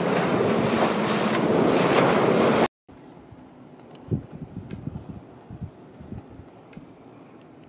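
Wind buffeting the microphone over the rush of water past a sailing catamaran's hull. It cuts off abruptly about two and a half seconds in, leaving a much quieter stretch with a few soft, low knocks and faint clicks.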